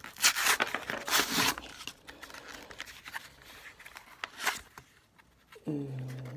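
Cardboard backing and plastic bubble of a trading-card blister pack being torn and pulled open by hand: crinkling and ripping in bursts, loudest in the first second and a half, with scattered smaller rustles and clicks and another short rip later on.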